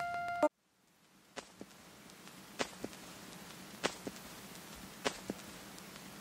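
Background music cuts off about half a second in. Footsteps then tap sharply on a hard stone floor, mostly in pairs roughly a second apart, over faint room hiss.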